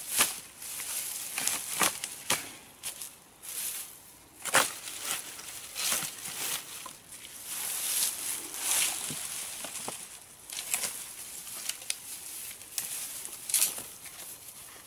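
Dead wood being handled and laid onto a pile in dry grass: rustling and crackling of dry stems and twigs, with irregular sharp snaps and knocks, the loudest about four and a half seconds in.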